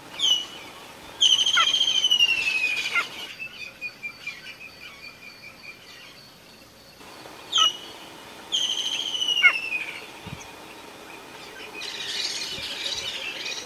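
Cheetah mother chirping to call her cubs: two rounds, each a short high chirp followed by a longer, wavering call that falls slightly in pitch, the rounds about seven seconds apart.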